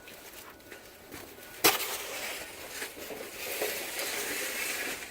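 A snow shovel knocks once sharply, then scrapes with a rough, hissy noise as it is pushed through snow.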